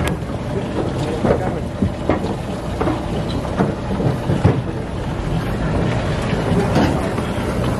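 Steady low machinery hum aboard a docked sportfishing boat, with scattered footsteps and knocks on the deck and wind buffeting the microphone.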